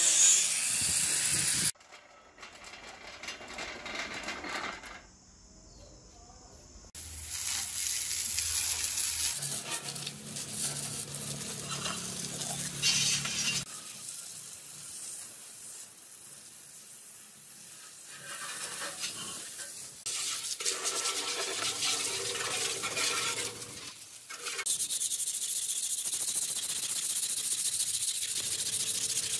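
A run of workshop sounds: an angle grinder on the steel milling table cuts off suddenly within the first two seconds; later, water from a garden hose sprays over the stripped machine parts; near the end, a hand rubs down the milling machine's painted column.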